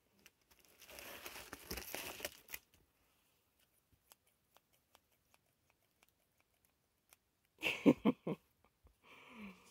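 Reflectix foil-bubble insulation crinkling and rustling as it is handled and old tape is torn off it, for about two seconds. Several sharp knocks come in quick succession about eight seconds in, the loudest sounds here.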